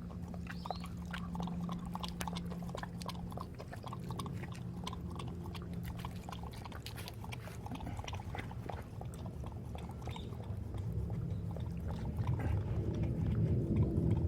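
A dog lapping up coconut water: a fast, irregular run of small wet clicks.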